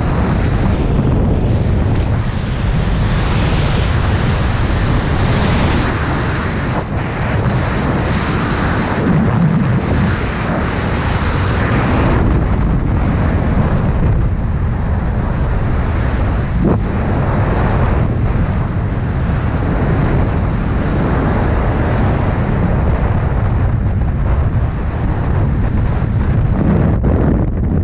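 Freefall airflow blasting over the skydiver's camera microphone: a loud, steady wind roar, with a sharper hiss coming and going between about six and twelve seconds in.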